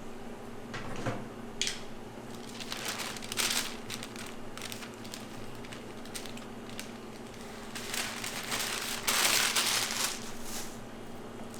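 Irregular handling noises of crinkling, rustling and sharp clicks, with a longer, louder rustle about nine seconds in, over a steady low hum.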